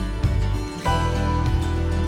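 Background music: pitched instrumental notes over a steady bass, with new notes coming in about a second in.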